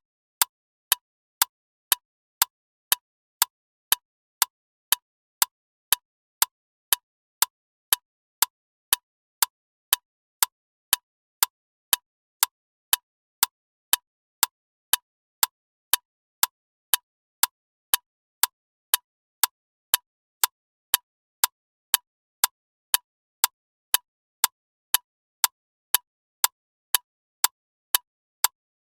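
Loud clock ticking steadily, about two sharp ticks a second with silence between them.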